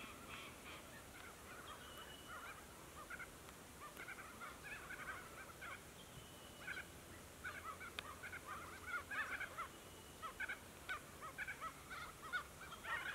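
Birds calling in a busy chatter of short, quick chirping notes, getting busier and louder in the second half, with a few brief thin whistles.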